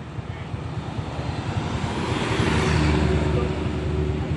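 Bus engine running close by, a steady low rapid pulsing that grows louder over the first three seconds, then holds.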